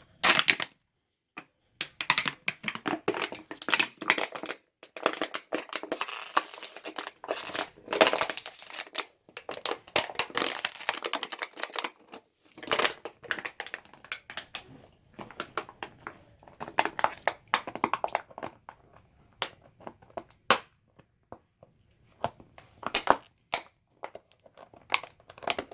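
A dog chewing and crushing an empty plastic bottle: irregular crackling and crinkling of thin plastic, in bursts with short pauses.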